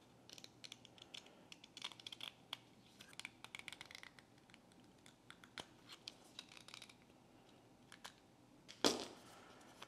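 Hooked blade of a hand deburring tool scraping leftover brim off the edge of a black PLA 3D-printed part: faint, irregular little scratches and clicks. A louder, brief noise comes near the end.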